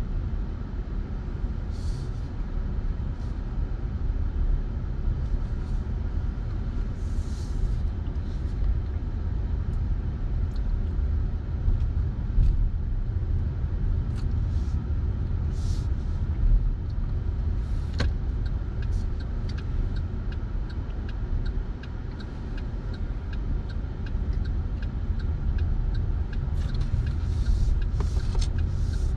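Car cabin noise while driving: a steady low rumble of engine and road. A few short rustles come through, and in the second half a light ticking about twice a second.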